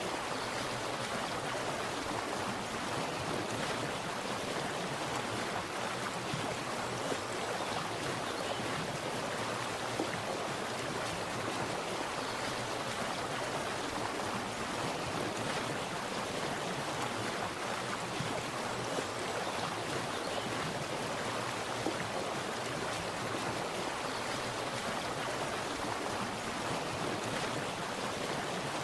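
Water splashing and running steadily, an even rushing with no pauses.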